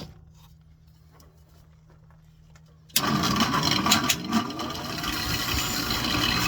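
Bench grinder switched on about halfway through, spinning up with a rising whine and then running steadily, ready for sharpening a lathe turning tool. Before it starts there is only a low steady hum.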